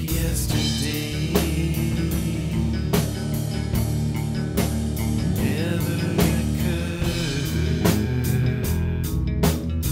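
Rock song played on guitars, bass and drum kit, with a sharp drum accent about every second and a half.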